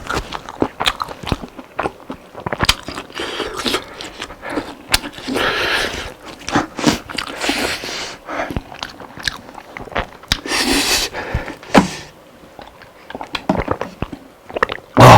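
Close-miked eating of crispy fried chicken: repeated crunching bites and chewing, with a few longer noisy stretches between the sharp crunches.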